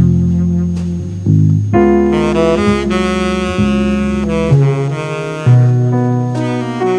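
Instrumental music: a melody of held notes over a low bass line, changing pitch every second or so.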